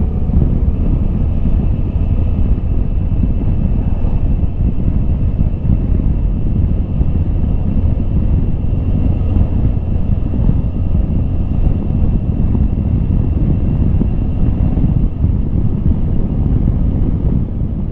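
Motorcycle being ridden at about 60 km/h: steady engine and road drone with wind buffeting the microphone.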